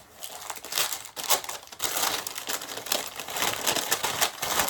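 Wrapping crinkling and rustling in irregular handfuls as a packed item is unwrapped by hand.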